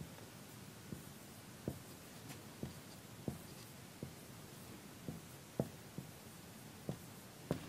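Marker writing on a whiteboard: faint, irregular taps and short strokes, roughly one every half second to a second, against quiet room tone.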